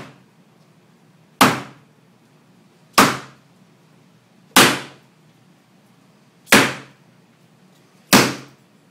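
A shoe's solid heel, with a wine bottle wedged in it, banged hard against a wall five times, about one and a half seconds apart, each knock a sharp thud with a short tail: the shoe trick of hammering the bottle's base to drive the cork out.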